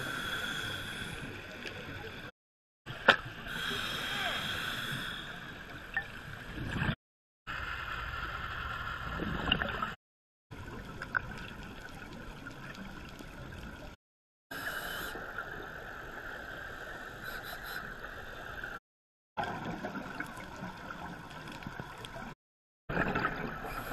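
Muffled underwater ambience picked up through a camera's waterproof housing: a steady hiss and gurgle with a few sharp clicks, the loudest about three seconds in. It breaks off into short silent gaps several times where clips are cut together.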